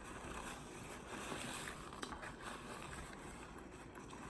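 Faint steady background hiss with a few soft ticks, no clear eating sounds standing out.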